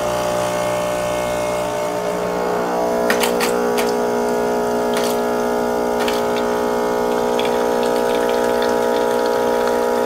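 Saeco Odea Giro Plus II super-automatic espresso machine's pump running with a steady hum as it pushes water through the brew group, pulling the machine's first priming shot. A few sharp clicks come between about three and five seconds in.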